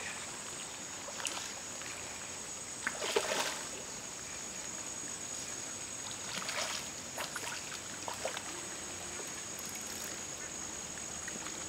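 A hooked tilapia splashing at the surface of the lake as it is played in to the bank, with a burst of splashing about three seconds in and smaller splashes between six and eight seconds. A steady high-pitched drone runs underneath.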